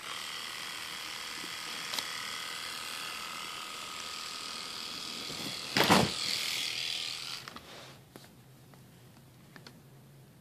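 Three-head rotary electric shaver switched on and running with a steady buzz. About six seconds in there is a loud knock, and the shaver stops about a second and a half later.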